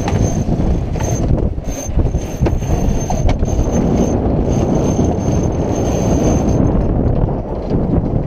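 Strong wind buffeting the microphone aboard a sailboat under way, a steady loud rumble, with a few sharp knocks in the first few seconds.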